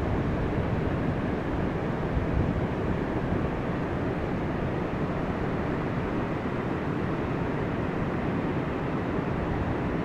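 Ocean surf breaking on a sandy beach: a steady rush of waves and whitewash.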